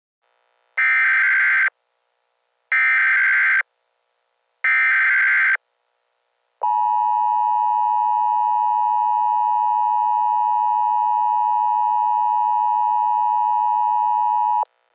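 Emergency Alert System alert opening: three short bursts of SAME digital header data, each about a second long, followed by the steady two-tone EAS attention signal held for about eight seconds and cut off sharply near the end.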